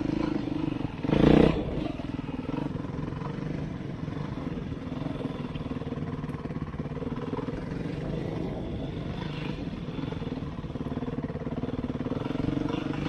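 Beta 390 RRS dual-sport dirt bike's single-cylinder four-stroke engine running steadily, with one brief louder burst about a second in.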